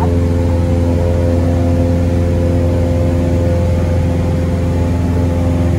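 Single-engine Cessna's piston engine and propeller droning steadily in flight, heard from inside the cabin as a strong, even low hum with several steady tones above it.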